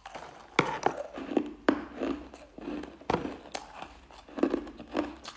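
Crushed ice being chewed, a mouthful at a time, with sharp, irregular crunches every half second to a second.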